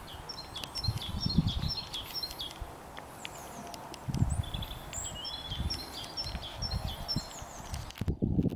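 Small birds singing, two spells of quick repeated high chirps, over wind buffeting the microphone in low gusts that come and go.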